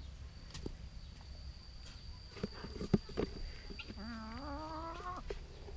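A few short knocks, then an animal's call that rises in pitch for about a second.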